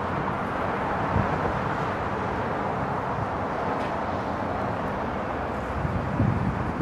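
Steady road traffic noise from cars passing on a multi-lane road, with brief louder low rumbles about a second in and again near the end.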